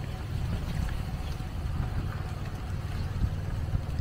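Wind buffeting the microphone: a steady low rumble that swells and dips unevenly.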